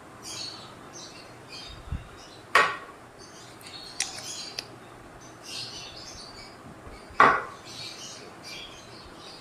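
Two sharp clinks of glass and dishware with a short ring, one a little over two and a half seconds in and another about seven seconds in, as a glass chili-ketchup bottle and kitchenware are handled on a countertop. A few lighter ticks fall between them, and faint short high chirps run throughout.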